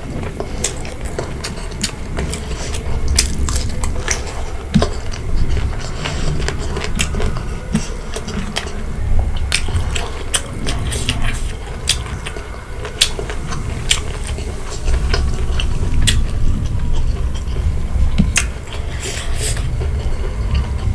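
Close-miked eating of pork curry, bamboo shoot and rice: steady chewing and biting with many short, sharp clicks and taps scattered throughout.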